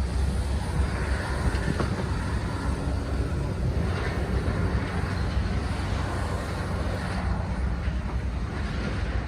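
Backhoe's diesel engine running steadily as it works a demolition job, with a couple of faint knocks of debris.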